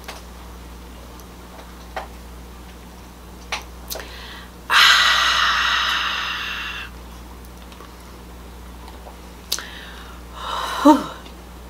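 A woman's long, breathy, satisfied 'ahh' exhale after a sip of cold soda through a straw. It starts suddenly and fades over about two seconds, with a few faint clicks before it and a short vocal sound falling in pitch near the end.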